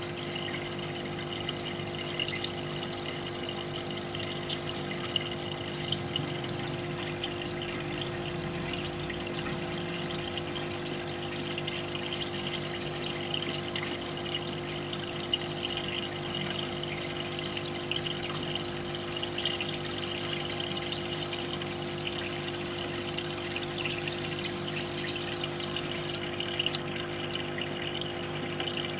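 Aquarium pump humming steadily, with a continuous bubbling of air rising through the tank water.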